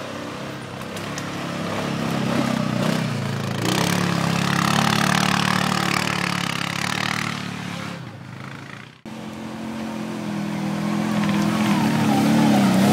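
ATV engine running and revving, its drone swelling and falling. It cuts off abruptly about nine seconds in, then an engine builds up again near the end.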